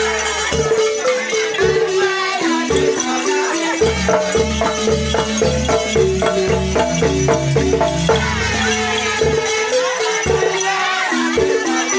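Loud music with a steady beat: a bass line stepping between held notes, rattle-like percussion and voices singing over it.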